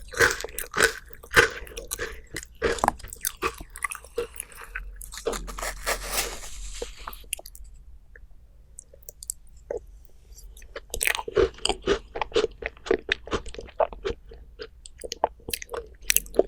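Close-up eating sounds: crisp, rapid crunching and chewing of dessert, with a stretch of softer continuous noise about five seconds in, a short lull, then crunching again for the last five seconds.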